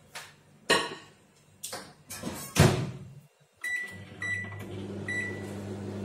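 900-watt microwave oven: a few knocks of its door and a louder clunk as it shuts, then three short keypad beeps, and the oven starts running with a steady hum at full power, heating oil in a glass bowl.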